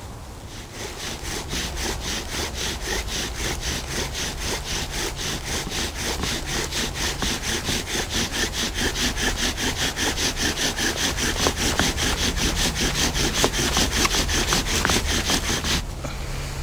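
Bow drill friction fire: a wooden spindle spun in a wooden fireboard by fast, even back-and-forth bow strokes, making a rhythmic wood-on-wood rasp. The strokes grow louder as the spindle bites in and the hearth starts to smoke, then stop suddenly about a second before the end.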